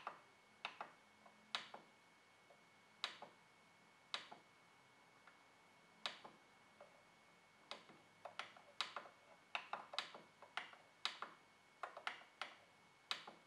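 Plastic buttons on a Canon MF113W laser printer's control panel clicking as its arrow and OK keys are pressed. The single presses are spaced about a second apart at first, then come in quicker runs in the second half. A faint steady high tone lies underneath.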